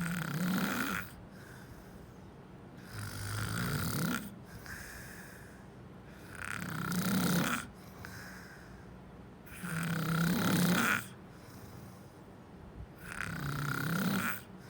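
A sleeper snoring in a steady rhythm: five snores of about a second each, one roughly every three and a half seconds, with quieter breathing between them.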